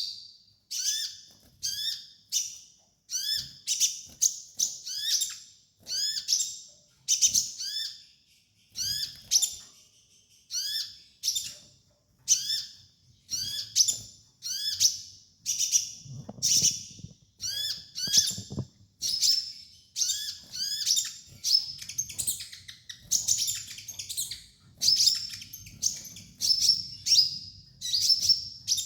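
A kolibri ninja sunbird calling in short, high, sharp chirping phrases, each with quick sweeping notes, repeated roughly once a second.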